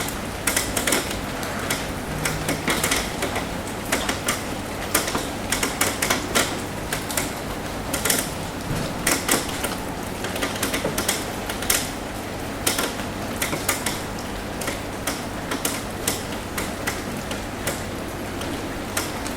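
Rain tapping on a roof: irregular sharp drips and clicks over a steady hiss of rain, the taps coming thick and fast in the first half and thinning out later.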